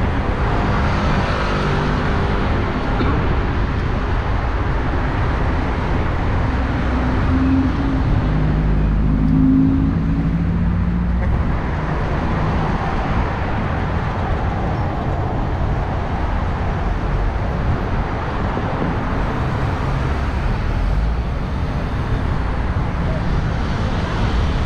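Steady city road traffic, with cars passing. About eight to ten seconds in, a louder engine goes by.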